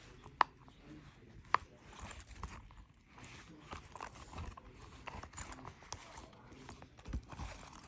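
Small plastic dimple spinner fidget toy being handled and clicked: two sharp clicks, about half a second and a second and a half in, then lighter scattered clicks and rattling.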